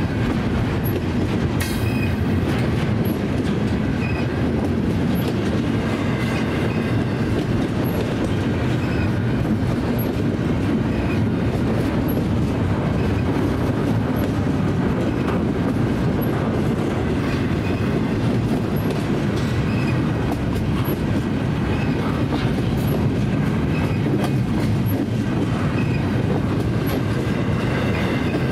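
Double-stack intermodal container train rolling past at steady speed: a continuous rumble and clatter of the well cars' wheels on the rails, with faint high ticks about once a second.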